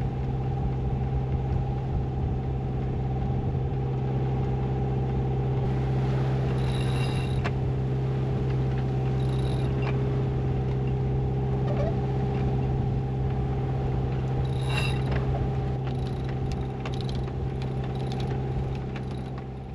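A steady mechanical hum throughout, with scattered clicks and ratcheting from a sailboat's winch being worked: a few about 7, 9 and 15 seconds in, and a quicker run near the end.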